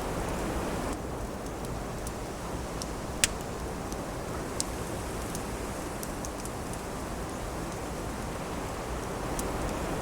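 Steady rush of wind with a wood fire crackling: scattered sharp pops over the wind, the loudest about three seconds in.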